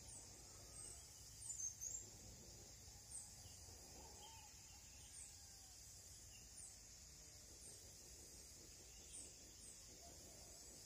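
Faint outdoor ambience: a steady high insect drone, with short, high, falling bird chirps about once a second and a few louder ones together near two seconds in.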